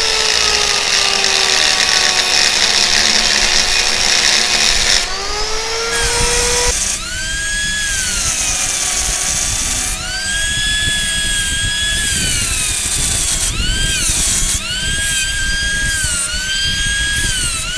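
Angle grinder with a cutting disc slicing into a motorcycle silencer's metal shell. Its whine drops and rises again several times as it cuts.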